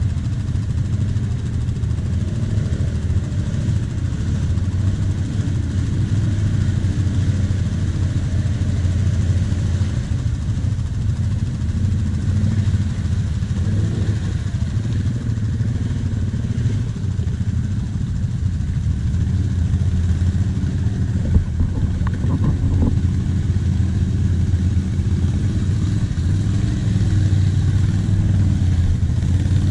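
Quad (ATV) engine idling steadily close by, with one short knock about 21 seconds in.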